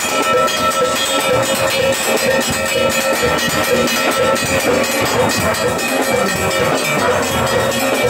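A steel orchestra playing live from close among the pans: many steelpans ringing together over percussion that keeps the beat.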